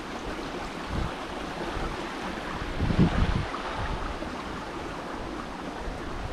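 Steady rush of a stream running high with rainwater off the hillside, with wind buffeting the microphone in low gusts about a second in and again two seconds later.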